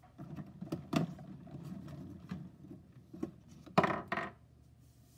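Small plastic Funko Pop figures handled on a wooden tabletop and pulled from a cardboard advent calendar: a series of light taps, clicks and rustles, loudest a little under four seconds in.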